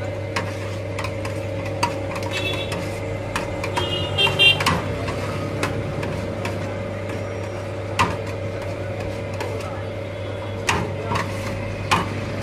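Steady machine hum of a shawarma stall's kitchen equipment, with a few sharp metal clinks and knocks scattered through it as the cook works the meat on the steel tray under the rotisserie.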